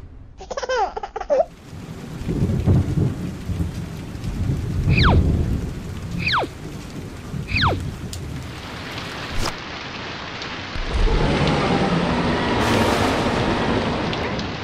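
Rainstorm sound effect: steady rain with low rumbles of thunder, the rain growing louder over the last few seconds. A brief high squeaky sound comes near the start, and three quick falling whistles cross the middle.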